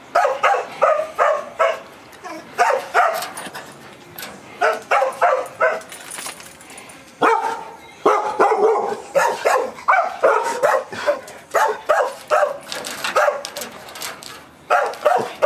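Pit bull-type dog barking in quick bursts of several barks, with short pauses between, and an almost unbroken run of barking through the middle.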